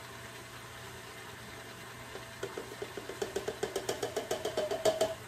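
Rapid taps of a handheld cup against the rim of a stainless-steel stand-mixer bowl, about seven a second, each ringing the bowl briefly, knocking the last of the ingredient into the bowl. The tapping starts about two and a half seconds in and is loudest near the end.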